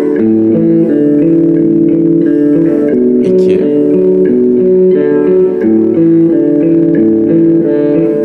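Electric guitar playing a repeating arpeggio pattern. Plucked notes walk through a bass line that steps every half second or so, under a high note that is held over them.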